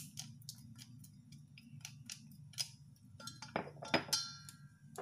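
Wooden chopsticks tapping and scraping on a small dish in scattered light ticks, then striking a stainless steel mixing bowl, which rings briefly with a metallic tone about three and a half seconds in.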